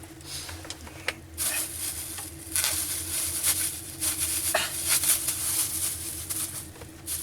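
Crinkly rustling and scraping in uneven bursts, starting about a second and a half in, as meat is unwrapped and cut, with a few sharp clicks.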